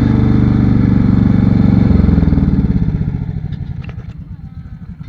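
A large engine running loudly and steadily, then falling away over a couple of seconds from about halfway through, leaving a fainter, slower pulsing.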